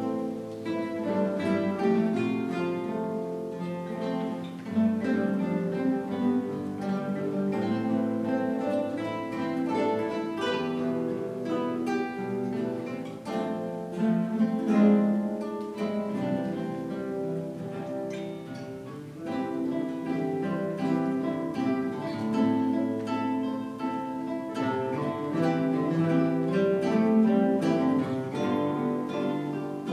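A guitar ensemble playing a piece together, many plucked guitars sounding at once.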